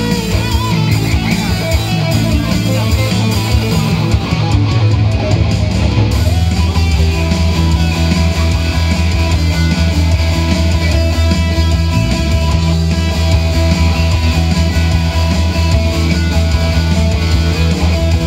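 Electric guitar played live through an ENGL amplifier, an instrumental piece with a heavy, steady low end.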